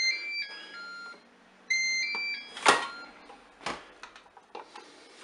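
Moulinex Cookeo multicooker playing its short electronic switch-off chime, a few clean notes falling in pitch, twice, as the appliance is turned off. Two sharp clicks follow about a second apart.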